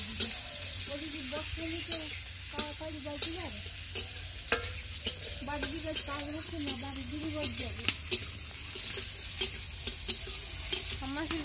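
Chopped onion and panch phoron frying in hot oil in a pan, sizzling steadily. A spatula stirs and scrapes it, clicking against the pan about once or twice a second.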